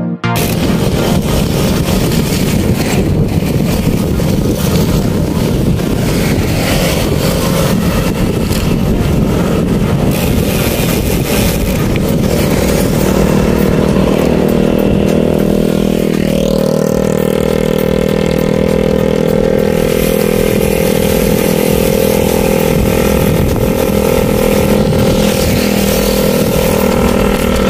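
Motorcycle engine running while riding, mixed with a rushing noise. A little past halfway the engine note drops, then holds steady.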